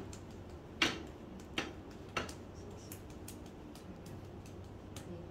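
Hand pats and slaps on a child's bare arm during a massage: three sharp pats about a second, a second and a half and two seconds in, with fainter taps between.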